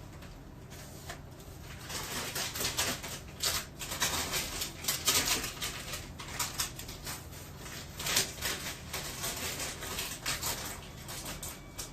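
Crinkling and rustling of packaging with quick irregular clicks and taps as a packaged crumble dessert is taken out and handled, busiest through the middle of the stretch.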